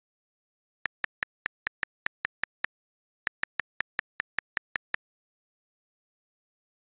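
iPad on-screen keyboard key clicks in two quick runs of taps, about five a second: one begins about a second in, the other ends about five seconds in.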